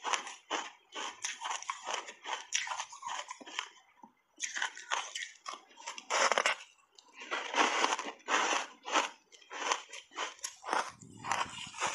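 A person chewing a block of ice coated in matcha powder, close-miked, with a steady run of short crisp crunches. There is a brief lull about four seconds in, then a big bite and heavy crunching around six to eight seconds.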